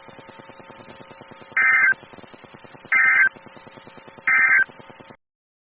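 Emergency Alert System end-of-message data signal: three short, identical warbling bursts of digital tones, about a second and a quarter apart, over a faint background hum, marking the end of a severe thunderstorm warning.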